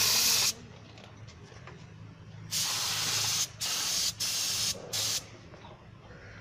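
Gravity-feed air spray paint gun hissing as the trigger is pulled and released: a burst at the start, then a longer one about two and a half seconds in, followed by several short bursts. A steady low hum runs underneath.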